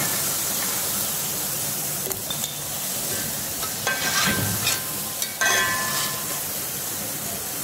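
Coconut oil sizzling steadily around frying aalanga balls (rice-flour and coconut) in a wok as they are lifted out with a perforated metal skimmer. A few short scrapes of the skimmer against the pan.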